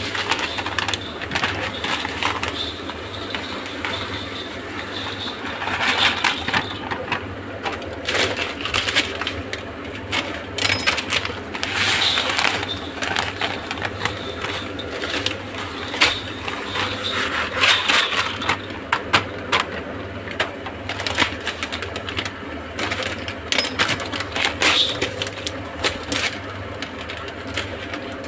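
Dry rice grains rattling and clicking as a large batch is poured and handled in a big metal cooking pot, a dense run of small clatters.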